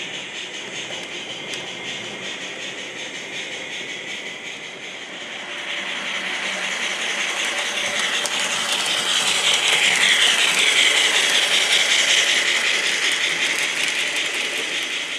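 Model trains running on a miniature railway layout: a steady rattling and clicking of wheels on the track that grows louder about halfway through as a train passes close, then fades near the end.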